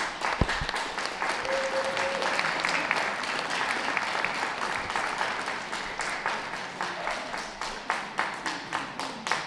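Audience applauding a dog gaiting in a show ring: dense clapping that carries on throughout and thins out near the end. There is a single dull thud about half a second in.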